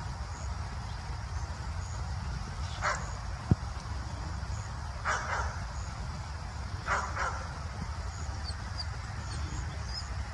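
Three short barks about two seconds apart from a red fox and a black dog squaring off, over a steady low rumble.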